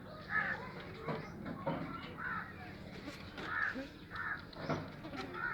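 A string of short animal calls, repeated about every half second to second, around nine in all.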